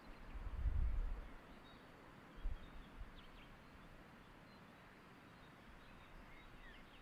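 Mountain outdoor ambience: a steady faint hiss with a few faint bird chirps, broken by a loud low rumble about half a second in and a shorter one around two and a half seconds.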